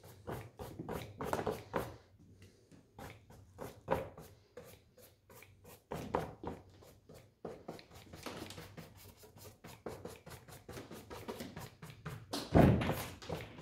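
A large paintbrush loaded with runny acrylic paint swept across canvas in quick, repeated short strokes, a few each second. One louder knock comes near the end.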